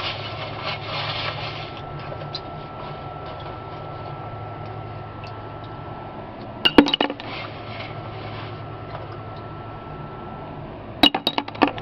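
Steel nuts and heavy steel pieces clinking against each other and the mixer's metal drum as they are picked by hand out of wet ash and metal chips. A short cluster of clinks comes about seven seconds in and several quick ones near the end, over a low steady hum.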